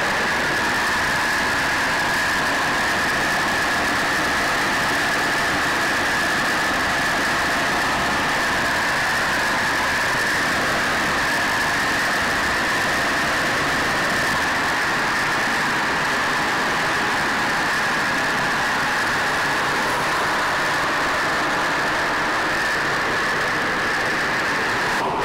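Steady drone of the B-25 Mitchell's two Wright R-2600 radial engines and propellers, mixed with rushing air, heard from inside the bomber's nose compartment in cruising flight. A steady high tone runs through the roar.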